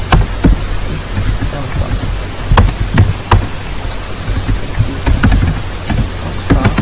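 Computer keyboard keys clicking in scattered, irregular strokes while code is typed, over a steady microphone hiss and low hum.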